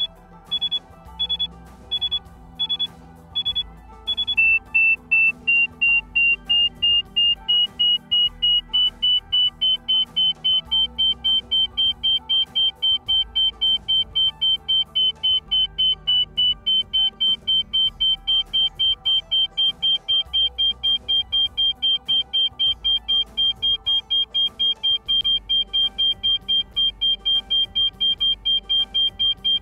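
Mammut Barryvox avalanche transceiver beeping in search mode over soft background music. Short high beeps come about one and a half a second at first. About four seconds in they switch to a faster rate, about three a second, starting a little lower and slowly rising in pitch before holding steady: the signal that the searcher is closing in on the buried transceiver in fine search.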